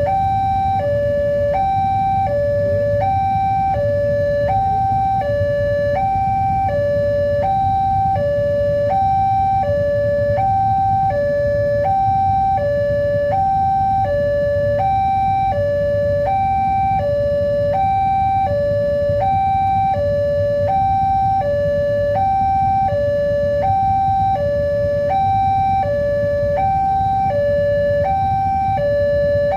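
Railroad level-crossing warning alarm sounding continuously: an electronic two-tone signal alternating evenly between a higher and a lower pitch, each held about half a second, warning that a train is approaching and the gates are closed. A steady low rumble runs underneath.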